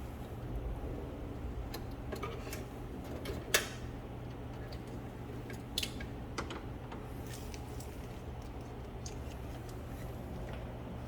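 Scattered small clicks and taps of hands and a tool working a wire into an electrical breaker's terminal, the sharpest about three and a half seconds in, over a steady low hum.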